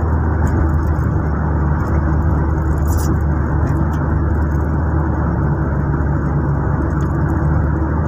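Steady engine and tyre drone heard from inside the cabin of a moving car: a low, even hum with road noise and no change in pace.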